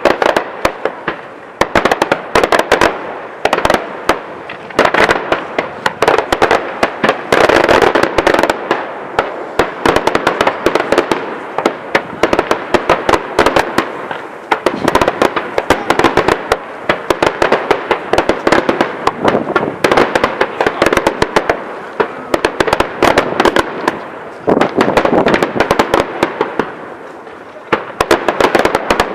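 Daytime aerial fireworks going off in a dense, continuous barrage of loud bangs and crackling reports, many per second, with brief slight lulls about halfway and near the end.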